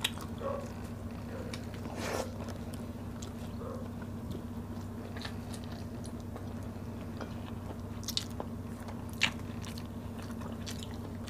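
Mukbang eating sounds: two people chewing fried pompano and rice eaten with their hands, with scattered short crunches and clicks over a steady low hum.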